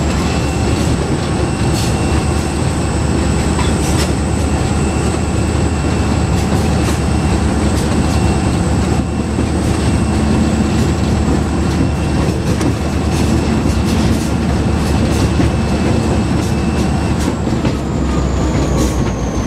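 Inside the cab of C&NW diesel locomotive 6847 rolling along the track: a loud steady engine and running drone with a thin high whine over it. Scattered clicks come from the wheels over the rail joints. The whine drops away near the end.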